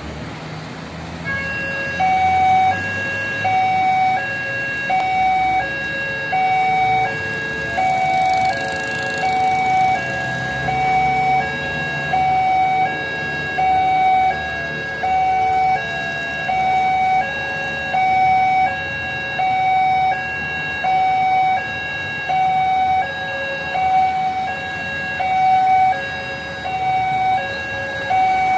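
Electronic warning alarm of a railway level crossing sounding while the barriers are lowered: a two-tone alarm, a higher tone alternating with a lower one, about one loud pulse every second and a half, from about two seconds in. Road traffic engines run underneath.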